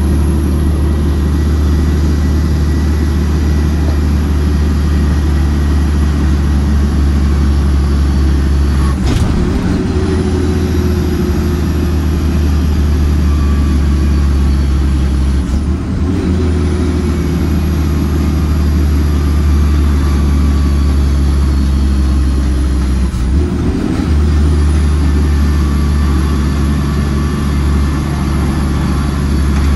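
Shacman F3000 dump truck's diesel engine running steadily under way, heard from inside the cab. The drone breaks briefly three times, about seven seconds apart, each time settling to a new pitch, as at gear changes.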